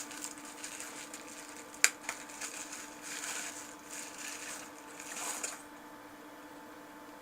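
Scratchy rustling and scraping handling noises with a single sharp click about two seconds in, stopping a little over five seconds in; a faint steady hum runs underneath.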